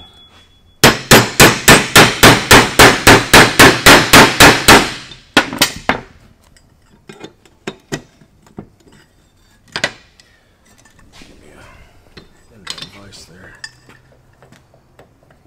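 A hammer rapidly driving an extractor socket onto a rounded, rusted bolt head: about twenty quick metal-on-metal strikes at about five a second, followed by a few lighter knocks and clicks as the socket and part are handled.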